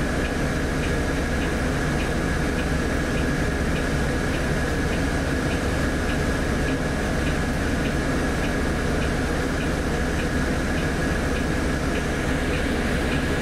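Volvo B8RLE bus's six-cylinder diesel engine running steadily, heard from inside the bus, with a faint thin whine over it and a light regular ticking about three times a second.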